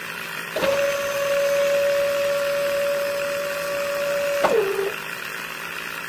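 A small electric motor driving a miniature model water pump whines at one steady pitch, then drops in pitch and stops about four and a half seconds in.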